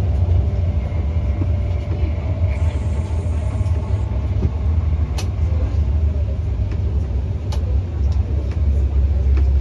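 Cabin noise of an MTR Tung Chung line Hyundai Rotem K-Train electric multiple unit pulling into a station: a steady low rumble from wheels and running gear, with a faint motor tone that fades out about halfway through as the train slows. Two sharp clicks come later.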